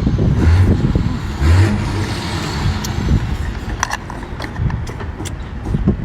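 Close-mic chewing and slurping of a sauce-dipped abalone, with a few sharp mouth clicks near the middle, over a steady low rumble.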